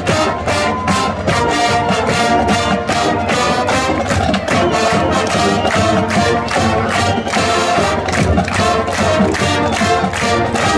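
Marching band playing, the brass section carrying the tune over drums that keep a steady beat.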